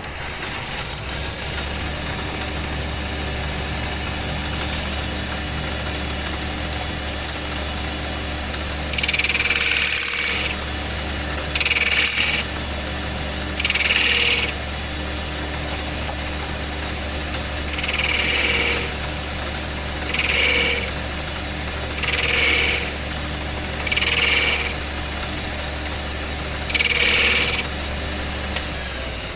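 Electric motor of a workshop machine running steadily with a low hum. Eight louder hissing passes of about a second each come over it, starting about nine seconds in.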